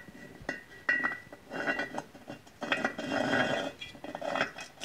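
Steel shift cam of a Yamaha Banshee transmission clinking and scraping against the aluminum crankcase as it is slid into its bore. Two sharp clinks with a brief ring come first, then three spells of metallic rattling and scraping.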